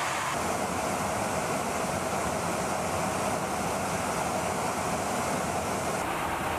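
Steady roar of jet aircraft in flight, an even rushing noise of engines and wind, with a slight change in tone near the end.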